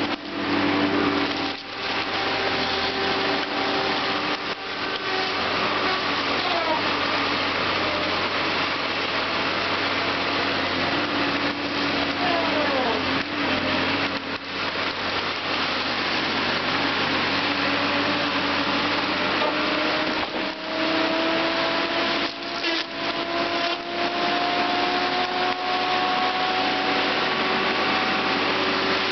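Timbco tracked feller buncher's diesel engine and hydraulics running hard, with whining tones that glide slowly upward through the middle and later part. Scattered sharp knocks of wood are heard as the machine works.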